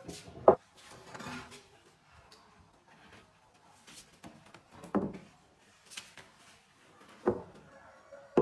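Wooden bed parts being handled and knocked together: four or so sharp wooden knocks, the loudest about half a second in and others near the middle and end, with softer sliding and handling noises between.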